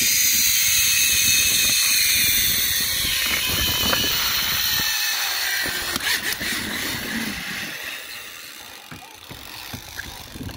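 A zip-line trolley's pulleys run along the steel cable with a steady high hiss and whine, mixed with wind rushing past. The sound dies away over the last few seconds as the ride slows to a stop, with a few knocks about six seconds in.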